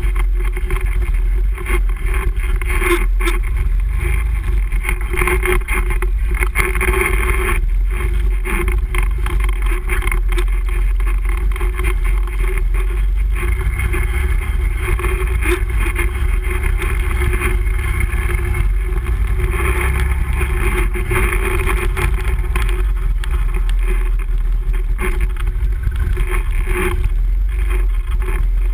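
Can-Am Renegade ATV's V-twin engine running steadily while riding over a rough trail, with occasional brief knocks and rattles from the machine over bumps.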